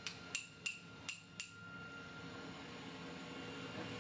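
Five light metallic clicks with a short ring, close together in the first second and a half, as pinning tweezers handle the small pins taken out of a lock; then faint room tone.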